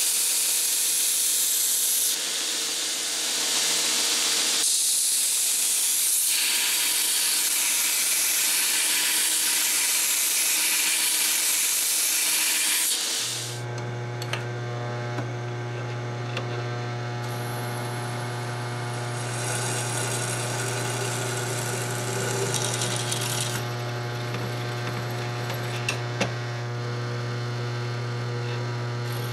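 Belt grinder grinding a flat steel piece: a loud, steady hiss that eases briefly about two seconds in. About 13 seconds in it gives way to a drill press running with a steady motor hum while a twist bit drills through the steel, the cutting noise coming and going.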